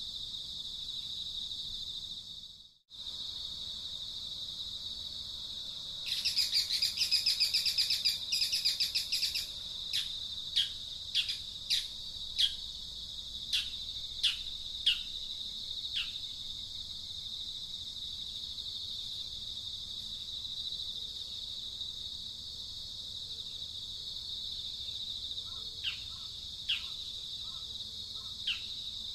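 Outdoor insect and bird ambience: a steady high drone like crickets, which drops out briefly just before three seconds. About six seconds in a fast, loud chirping trill runs for some three seconds, followed by a string of short, sharp chirps that sweep downward, with a few more near the end.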